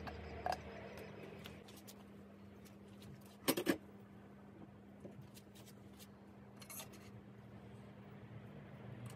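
Bicycle parts being handled: a few short metal clicks and knocks, the loudest a quick rattle of clicks about three and a half seconds in, over a faint steady hum.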